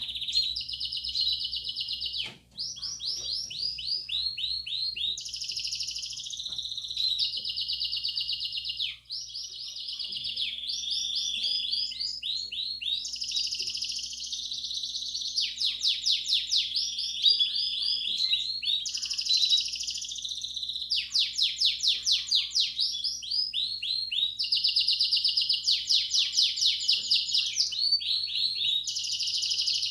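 Belgian canary singing a continuous campainha-style song: rapid trills and rolls of repeated high notes, switching to a new phrase every second or two, with two brief breaks in the first ten seconds.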